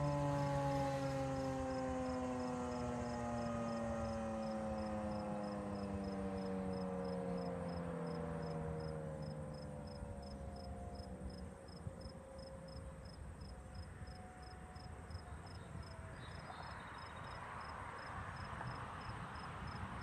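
Federal Signal 2001-SRN rotating tornado siren winding down at the end of its test: its tone falls steadily in pitch and fades away over about ten seconds as the rotor coasts to a stop.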